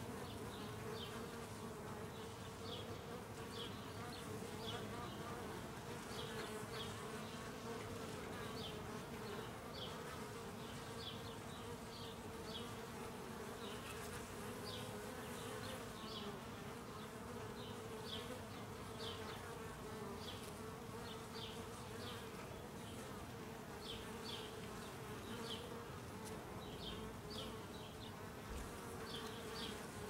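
Honeybees buzzing at the hive entrance as foragers land and take off: a steady, even hum. Short high chirps come and go over it.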